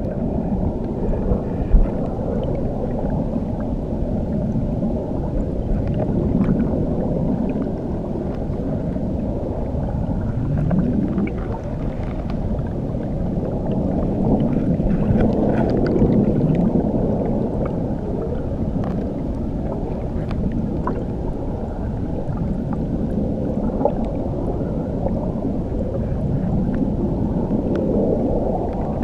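Underwater recording beneath a waterfall: a steady, muffled churning rumble of water, with faint small clicks and pops above it.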